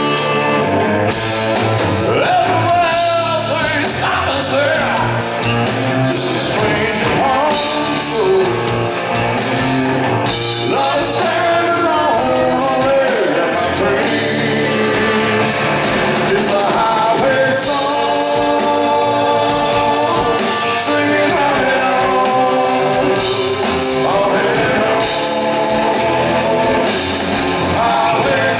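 Live rock band playing loud: electric guitars, bass guitar and drums with cymbals through Marshall amplifiers, ringing in a large hall.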